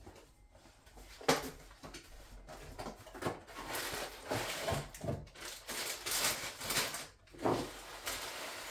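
Kitchen handling sounds: food packaging rustling and a series of light knocks as items are picked up and set down on the counter beside a bowl, the sharpest knock about a second in.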